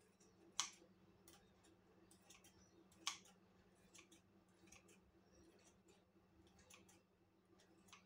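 Kitchen scissors snipping slices of cured ham: faint, scattered snips, with two sharper ones about half a second in and about three seconds in, over a faint steady hum.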